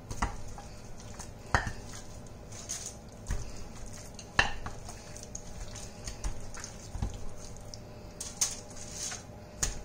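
Kitchen handling sounds as marinated raw pork is worked by a gloved hand in a ceramic dish and laid on a foil-lined baking tray: scattered sharp clicks and knocks, the loudest about four and a half seconds in.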